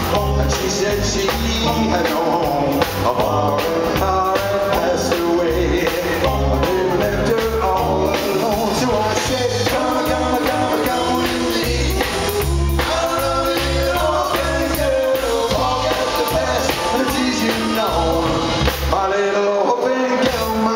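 Live rock and roll band playing: a man singing over electric guitar, upright double bass plucking a steady walking bass line, and drums keeping a regular beat.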